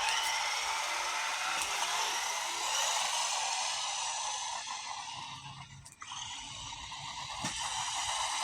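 Small brushed electric motor of a 1/18-scale RC car whining as the car drives, dropping off briefly about six seconds in and then picking up again.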